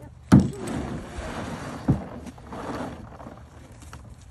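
Hollow plastic kayak being handled on a muddy bank: a loud knock a moment in and a second about two seconds in, with scraping and rustling as the hull is dragged and pushed over the ground.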